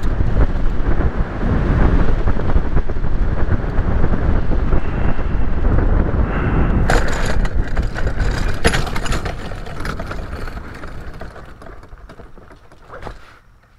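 Paramotor trike landing: the engine and rushing wind give a dense low noise, broken by two sharp knocks at about 7 and 9 seconds as the wheels touch down and bump over the grass. The noise then dies away over the last few seconds as the trike rolls to a stop.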